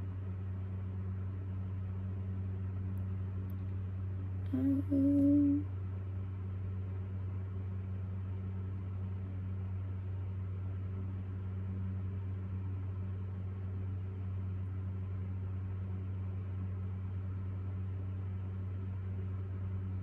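Steady low hum with faint even overtones, like equipment or mains hum in the room. About four and a half seconds in, a woman hums one short note for about a second.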